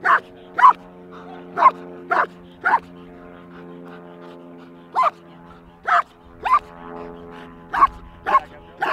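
A dog barking: about eleven short, sharp barks in quick groups of two or three, with a pause of about two seconds near the middle.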